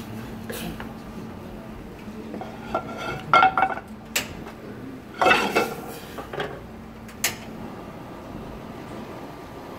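Metal pans clanking against the grates of a gas range as a stainless saucepan and a frying pan are handled and set down: a run of ringing clanks about three seconds in, a louder cluster around five seconds and a single clank near seven seconds, over a steady low hum.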